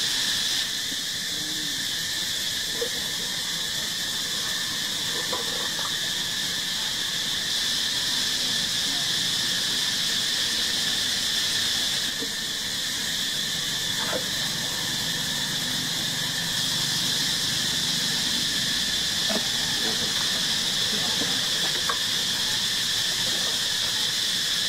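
Steady, high-pitched insect chorus, with a few faint short squeaks over it.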